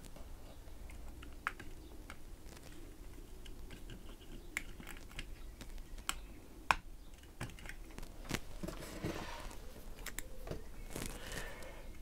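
Small plastic clicks and taps as thin plasticard strips are worked into the body clips of a model locomotive to release its chassis. There is one sharper click about two-thirds of the way through, and a couple of soft rustles near the end.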